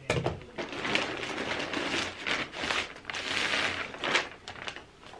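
Plastic poly mailer crinkling and packing paper rustling, in an irregular run of crackles, as a parcel's contents are pulled out of the bag.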